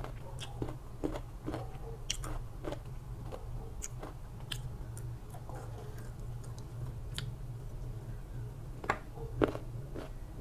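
Close-miked chewing and crunching of crisp green mango slices with dried beef, mixed with short clicks of a fork on the dish, over a low steady hum.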